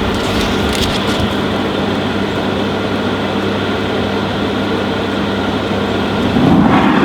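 Electric air blower of a coal forge running: a steady hum with a rush of air. It gets louder near the end.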